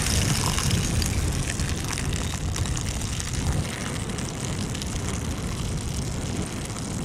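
Footsteps crunching on ice-crusted snow, under a low, uneven rumble of wind on the microphone.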